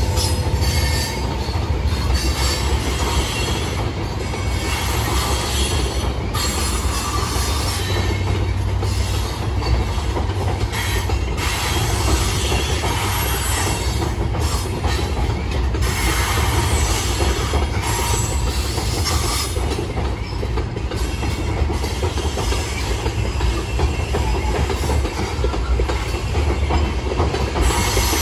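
Freight train of open-top hopper cars rolling steadily across a steel deck girder bridge on timber bents: a continuous heavy low rumble of wheels on rail and bridge deck, with no break in the sound.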